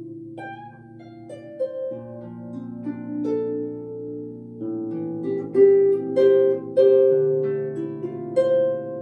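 Solo harp playing: plucked notes ringing over held low notes, growing louder in the second half with several strong plucks.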